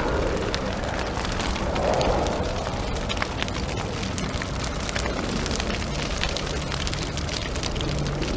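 A steady crackling hiss, dense with small pops and clicks.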